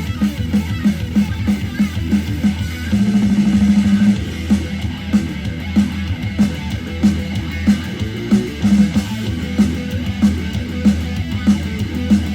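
Instrumental music with guitar and a pulsing bass line, played through a Bose SoundLink Flex portable Bluetooth speaker during a sound test.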